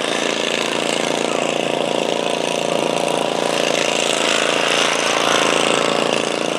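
Modified pulling garden tractor's engine running hard under load as it drags a weight-transfer sled, a loud, fast, steady engine note that holds its pitch.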